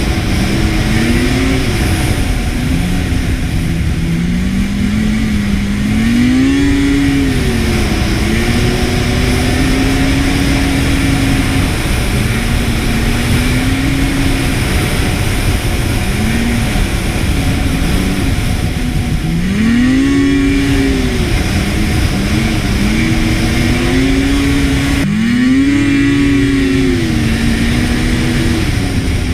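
Snowmobile engine running under way, its pitch rising and falling again and again as the throttle is opened and eased off, over a steady rushing noise.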